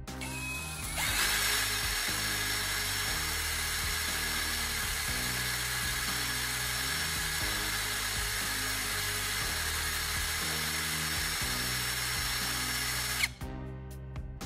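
A small power tool spins up about a second in and runs steadily with a high whine, grinding down the core rod taken from an AA battery to shape a welding tip. It cuts off sharply near the end.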